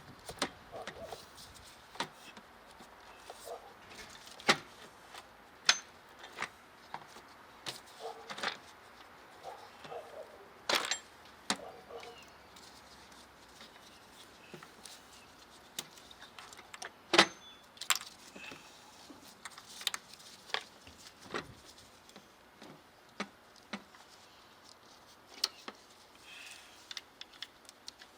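Scattered metallic clicks, clinks and knocks of hand tools and loose engine parts being handled, with a few louder clanks among them.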